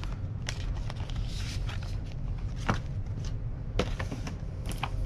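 Paper and cardboard being handled: scattered rustles and light taps as printed setup-guide cards and the lid of a cardboard box are moved, with a sharper tap about a second before the end. A steady low hum runs underneath.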